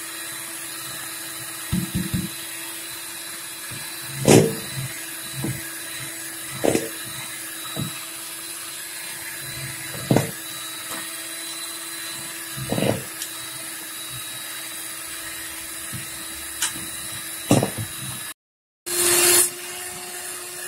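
Electric hand mixer running steadily, its beaters whipping eggs and powdered sugar in a bowl, with a dozen or so irregular knocks along the way. The sound cuts out briefly twice near the end.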